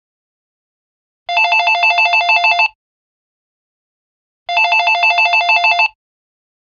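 Panasonic telephone's electronic ringtone: a fast warbling trill of alternating tones, sounding in two rings of about a second and a half each, a few seconds apart.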